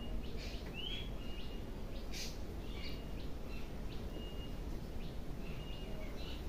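Birds calling: short whistled notes repeated every second or so, one arched note, and a few brief raspy chirps, over a steady low background noise.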